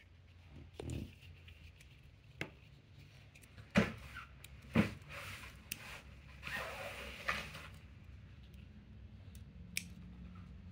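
Small plastic Lego pieces being handled and pressed together: a few sharp, separate clicks, with a brief rustle of a hand moving over the cloth table cover a little past the middle, over a low steady hum.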